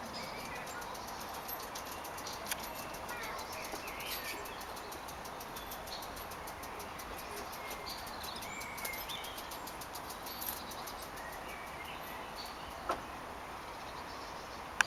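Small birds chirping and singing in scattered short phrases over a steady outdoor hiss, with a couple of short clicks.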